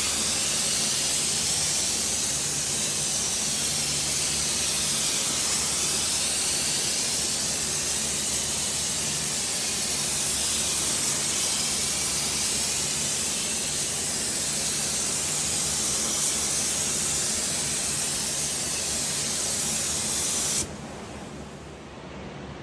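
Paint spray gun spraying with a steady loud hiss that cuts off suddenly near the end. A lower steady hum runs underneath.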